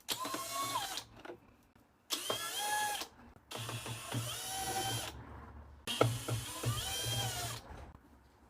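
A power screwdriver runs in four short bursts of about one to two seconds each, its motor whine shifting in pitch, while it backs out screws holding a washing machine's panel.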